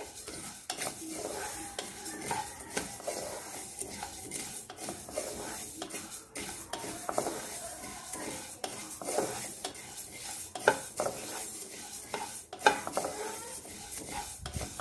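Wooden spatula stirring whole coriander, fennel, cumin and fenugreek seeds as they dry-roast in a kadhai. The seeds rustle and rattle across the bare metal pan, with irregular taps and scrapes of the spatula.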